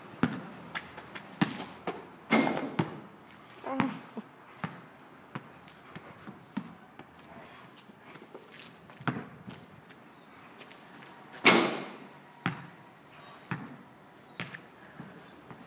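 A basketball bouncing on asphalt: separate thuds at irregular spacing, several close together in the first few seconds, then sparser, with one louder bang about eleven and a half seconds in.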